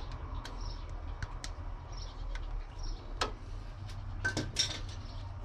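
A few light clicks and taps of a screwdriver and a small ground screw being handled at the motor's wiring terminals, the sharpest about three seconds in and a short cluster near four and a half seconds, over a low steady hum.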